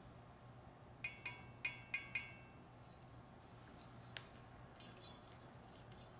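Light metallic clinks from a steel chef-cleaver knife being handled: five quick ringing clinks about a second in, then a single sharper tick and a few faint ticks.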